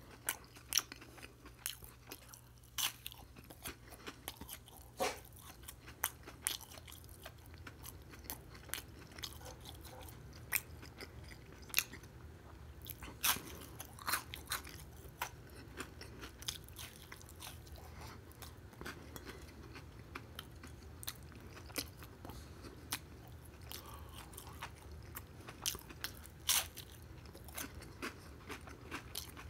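Close-up chewing and crunching of a crispy breaded fried food, with irregular crackling crunches, some much louder than others, over a steady low hum.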